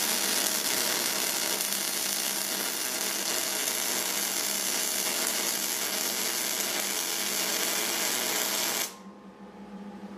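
MIG welding arc sizzling steadily as a bead is laid on a steel strip. It cuts off sharply about nine seconds in when the arc is stopped, leaving a low steady hum.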